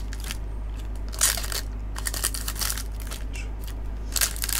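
Plastic wrappers of Topps Pro Debut jumbo baseball card packs crinkling in several short bursts as the packs are picked up and handled, over a steady low hum.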